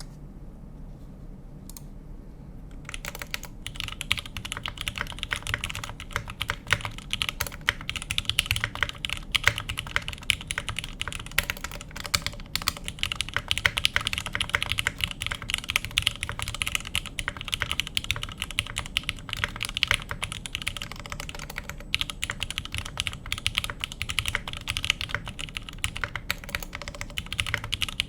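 Typing on a computer keyboard: a few separate key presses, then from about three seconds in a fast, continuous run of key clicks. A steady low room hum lies underneath.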